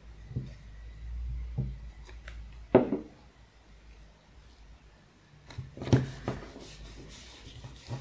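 Paper crafting by hand: a glue stick rubbed over a small scrap of paper, a sharp knock about three seconds in, then rustling as fingers press and smooth the glued scrap down onto a paper page.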